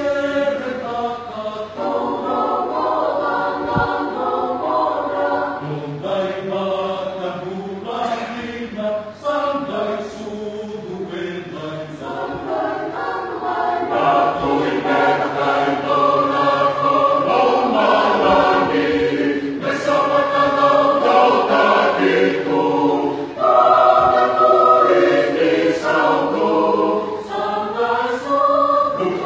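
Mixed church choir of women and men singing a Fijian-language song together under a conductor, growing louder about halfway through.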